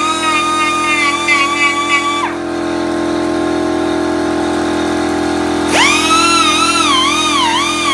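Electric rotary carving tool whining as its bit cuts wood, the pitch wavering up and down with each stroke. It stops a little over two seconds in and spins back up with a quick rising whine about six seconds in, over a steady low hum.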